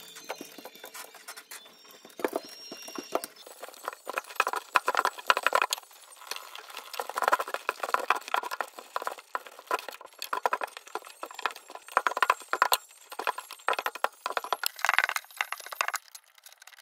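Sticky lint roller rolled in repeated strokes over a chunky knit sweater and denim jeans, its adhesive sheet crackling and ticking as it grips and pulls off the fabric.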